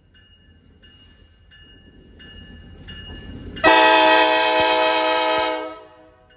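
A bell dings steadily about every 0.7 seconds as a CSX track geometry train approaches, its rumble building. About three and a half seconds in, a multi-chime train horn sounds one long blast of about two seconds, by far the loudest sound, then stops.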